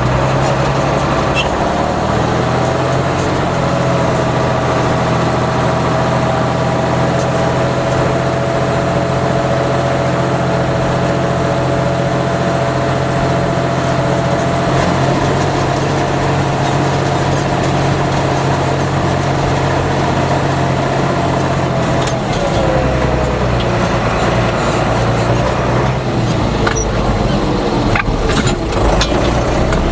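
Fendt Favorit 611 LSA Turbomatik tractor's six-cylinder turbo diesel running steadily under load while pulling a four-furrow Lemken EurOpal 7 plough, with a steady whine over the engine note. A little over twenty seconds in, the whine dips in pitch and the engine note changes, followed by a few light clicks.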